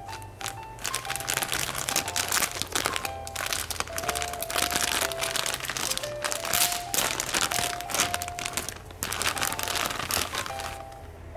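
Thin clear plastic bag crinkling and crackling loudly as hands work it open and pull it off a plush toy, stopping shortly before the end, over a light background melody.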